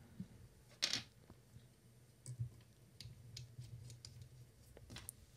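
Faint handling noise as a Blue Yeti X microphone is fitted back into its stand and the mount's side knob is turned: a few small, scattered clicks and light scrapes, the clearest about a second in.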